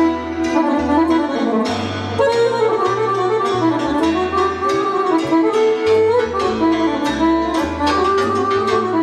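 Live lăutari band music: electric violin and accordion carrying a fast, ornamented melody over struck cimbalom and a plucked double bass line.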